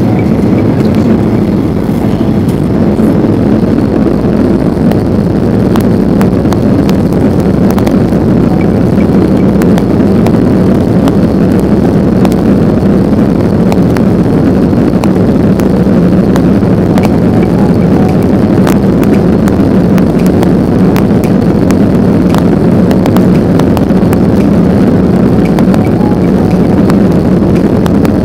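Boeing 737-800's CFM56 turbofan engines at takeoff power, heard from inside the cabin as a loud, steady roar while the airliner accelerates down the runway. Scattered faint clicks run through it.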